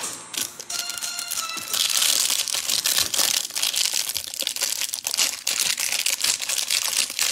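Plastic wrapping crinkling and rustling, with many small clicks, as trading-card hanger packaging is opened and handled. Faint background music fades out in the first couple of seconds.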